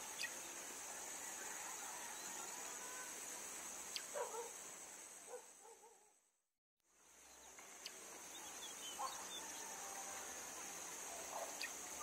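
Steady high-pitched drone of insects, with a few brief, faint animal calls about four seconds in and again near the end. The sound fades out to silence for a moment in the middle, then returns.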